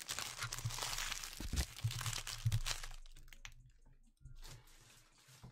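Empty trading card pack wrappers being scrunched up and gathered together: dense crinkling and crunching for about three seconds, then fading to a few faint rustles and clicks.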